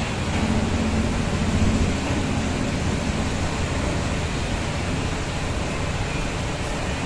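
Steady rushing noise, with a low hum over it during the first two seconds.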